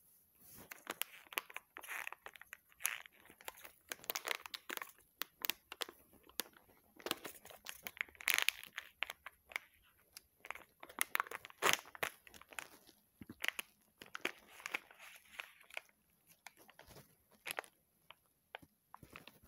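Packaging of a rapid antigen test kit being torn open and crinkled by hand: irregular crackles, rips and rustles, dying down over the last few seconds.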